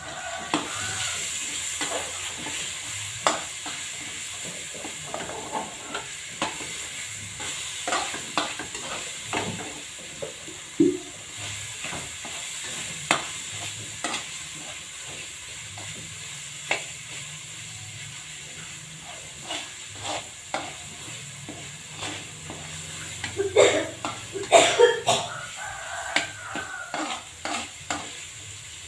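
Spatula scraping and tapping against a wok while spice paste sizzles in hot oil. The stirring ticks and knocks repeatedly over a steady frying hiss, with a flurry of louder clanks about four-fifths of the way through.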